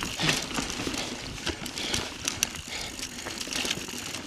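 Mountain bike descending a loose dirt trail at speed: tyres crunching over loose dirt and rocks, with frequent sharp clicks and knocks from the bike rattling over the rough ground.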